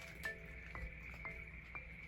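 Soft background music: a quiet mallet-percussion tune with a few sparse notes.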